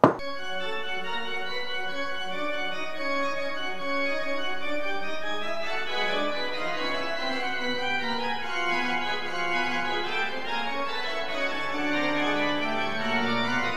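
Organ music playing slow, held chords that change every second or so.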